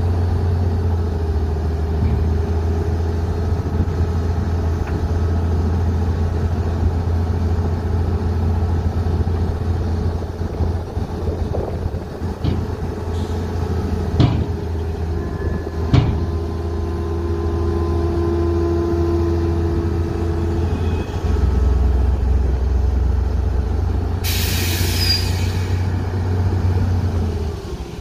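Tipper truck's diesel engine running steadily while the dump body is raised and its sand load slides out, with a couple of sharp metallic knocks partway through. Its note drops a little about three quarters of the way in, and an air-release hiss of about a second and a half follows soon after.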